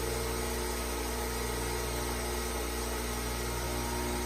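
Craftsman Model 397.19590 half-horsepower capacitor-start block grinder, set up as a buffer, running with a steady, even hum and no knocks or rattles. Its owner calls it smooth-running, with good bearings.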